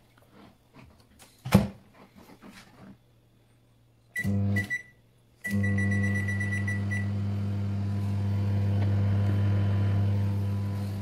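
Microwave oven door shut with a sharp clack, then a brief beep and hum about four seconds in. From about five and a half seconds the oven runs with a loud, steady electrical hum, beeping at first, heating at full power.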